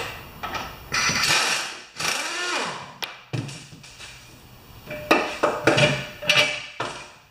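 Handheld power driver running mower-engine mounting bolts up into the aluminium engine base, its motor whirring in short runs with a pitch that sags and picks up again, followed by a cluster of clunks and knocks as the mower deck is handled.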